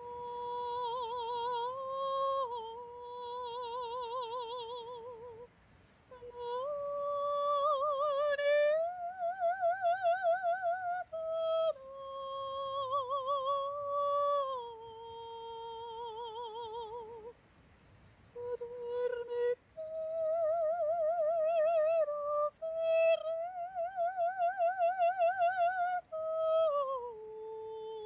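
A woman singing solo in a high voice, holding long notes with a wide, even vibrato and stepping up and down between pitches, with a couple of short breaks between phrases.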